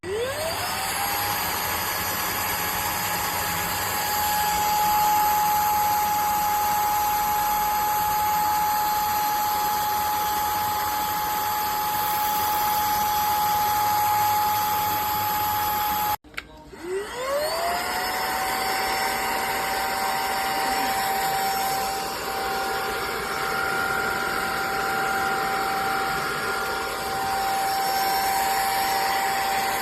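Airbot Hypersonics Max cordless stick vacuum's motor spinning up with a rising whine and running at a steady high pitch. About halfway through it cuts off, then spins up again and runs steadily.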